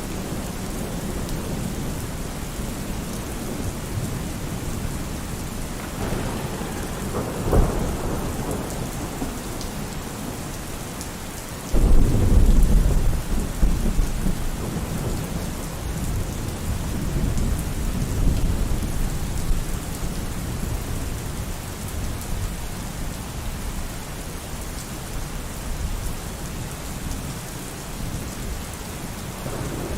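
Steady heavy rain with rolling thunder: a crackling peal about seven seconds in, then a sudden loud clap near twelve seconds that rumbles on and slowly fades, and another rumble starting near the end.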